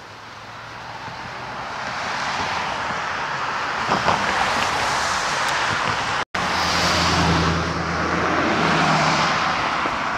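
Road traffic passing close by: cars going past one after another, their tyre and engine noise swelling and fading, with a deeper engine hum from a passing vehicle in the second half.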